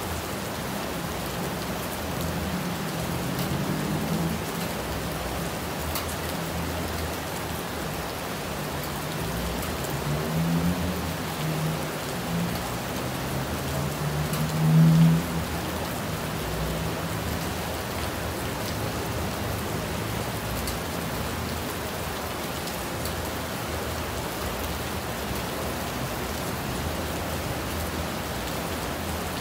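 Steady rain falling, an even hiss of drops, with a low rumble swelling up a few times, loudest about halfway through.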